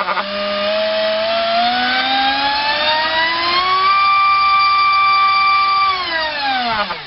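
Multistar Viking 2208 2600 kV brushless drone-racing motor spinning a 5x4 three-bladed prop on a 3S battery during a thrust test. It warbles briefly, then its whine rises steadily as the throttle is opened over about four seconds, holds at full throttle for about two seconds, and falls away to a stop at the end.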